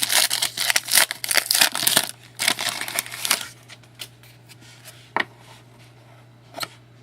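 Foil trading-card pack wrapper crinkling and tearing for about three seconds, then a few short clicks of cards being handled.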